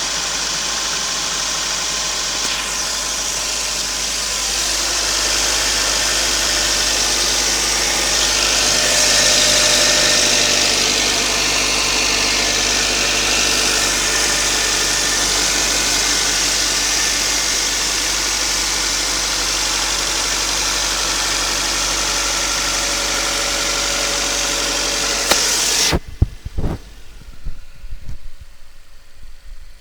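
Toyota 5A-FE 1.5-litre inline-four running cold with a knock, which the owner places under the valve cover. About 26 seconds in the engine sound stops abruptly, followed by a few clicks and thumps.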